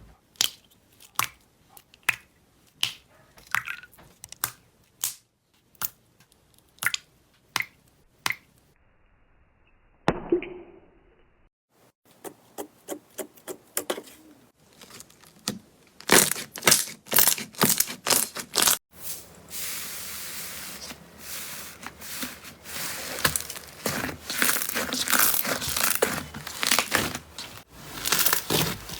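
Slime being squeezed and poked by hand: a run of separate sharp sticky clicks and pops, then, about halfway through, loud crackling that thickens into a dense, continuous crackle.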